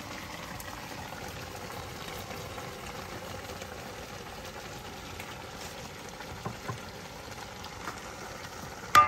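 Gravy base cooking in a pot, a steady sizzle and bubble, with a couple of light taps and one sharp, ringing metal clink near the end.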